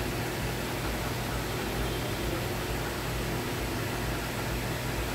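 Steady hiss with a low hum underneath and no distinct events: room noise from a running fan or the recording itself.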